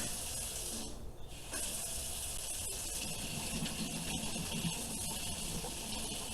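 Running water hissing steadily, cut off briefly about a second in and then flowing again, as when washing hair.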